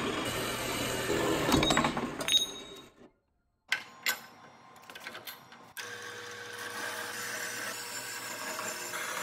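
Jet horizontal metal-cutting bandsaw running, its blade cutting through a steel plate. A couple of sharp metallic knocks come in the first few seconds. In the second half there is a steady motor hum under the cutting.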